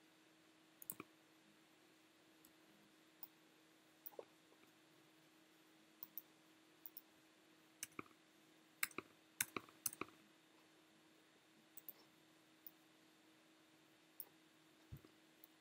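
Scattered clicks of a computer mouse and keyboard, single and in pairs, with a quick, louder cluster about nine to ten seconds in, over a faint steady hum.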